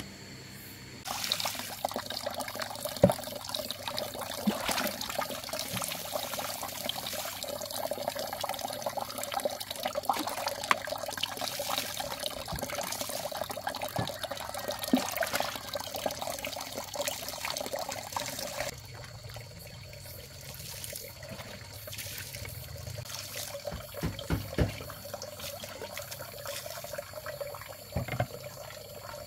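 Water running or pouring in a steady stream. It starts suddenly about a second in and stops about two-thirds of the way through. A few knocks follow.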